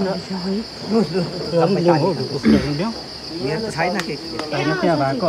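A steady, high-pitched drone of insects, with people's voices talking over it.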